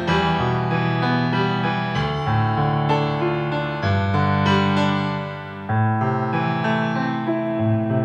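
Background piano music: slow, held chords that change every second or two, with a brief dip in level shortly before a new chord comes in about three-quarters of the way through.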